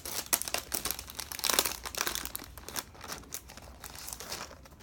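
Toy packaging crinkling and rustling as it is handled and torn open, an irregular run of crackles that is densest about a second and a half in and thins out near the end.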